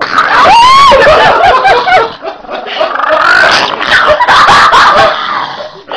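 A pug growling as it playfully attacks a man, mixed with the man's loud laughter. There are a few high, sliding cries in the first two seconds.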